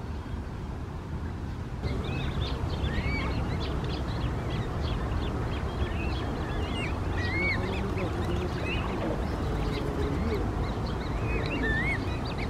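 A group of waterbirds calling: many short, high calls overlapping, starting about two seconds in, over a steady low rumble.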